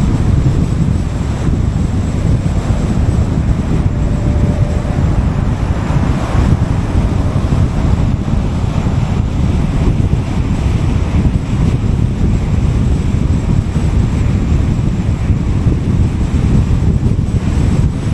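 Wind and road noise from a car driving on a highway: a steady, loud low rumble with wind buffeting the microphone.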